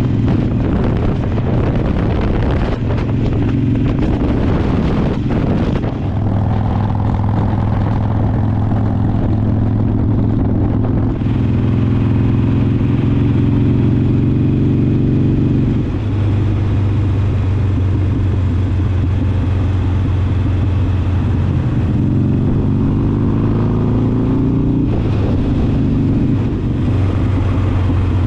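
Harley-Davidson V-twin motorcycle engine running while riding along a road. The engine note shifts in pitch several times and climbs about 22 seconds in, over steady road and wind noise.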